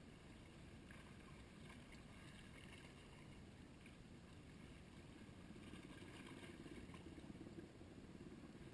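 Near silence: faint, steady lapping of bay water against the rock jetty.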